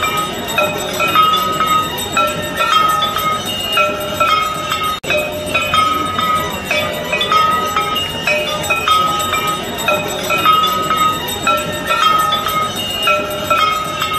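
Aarti bells ringing in a steady repeating rhythm over a continuous background din; the sound drops out for an instant about five seconds in.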